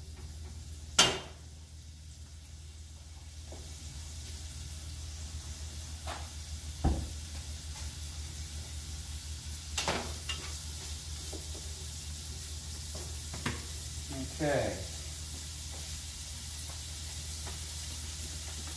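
Chopped bacon frying in a little oil in a pot on a gas stove, stirred with a wooden spoon; the sizzle builds over the first few seconds as the pot heats. A sharp knock of the spoon against the pot about a second in, and a few lighter knocks later.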